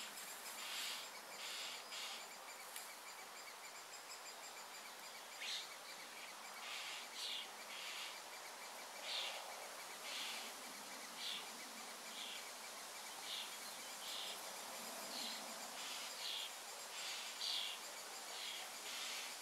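Woodland ambience: small birds chirping in short, irregular calls over a faint steady insect trill.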